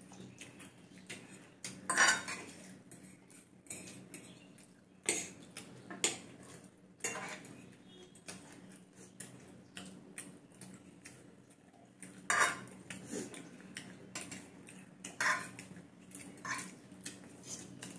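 Metal forks clinking and scraping against ceramic plates while people eat noodles, in scattered irregular clinks, the loudest about two seconds in and again around twelve seconds. A steady low hum runs underneath.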